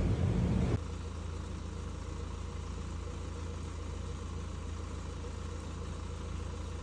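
Loud low vehicle rumble that drops off suddenly about a second in to a steady low engine hum.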